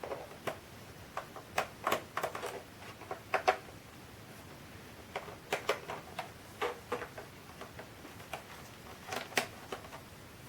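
Irregular small clicks and ticks of a screwdriver working the screws out of a laptop's underside, some in quick little clusters.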